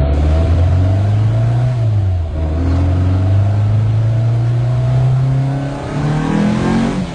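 Volkswagen engine running and being revved: the revs dip around two seconds in, then climb near the end and drop back.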